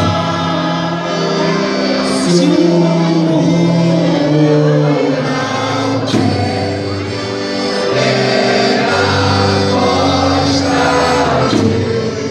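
Portuguese folk dance music: singing voices over long held instrumental chords, with a few sharp strikes.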